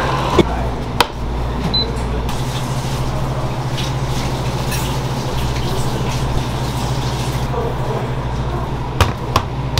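Steady low hum of a running machine, with a few sharp knocks about a second in and again near the end.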